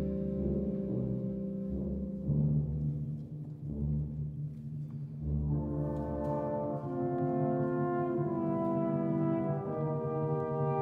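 Wind band music: low notes held for the first half, then sustained brass chords come in about halfway and carry on.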